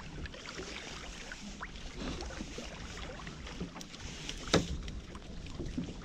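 Wet drift net being hauled by hand over a boat's gunwale, with water lapping and dripping and small scattered ticks, and one sharp knock about four and a half seconds in.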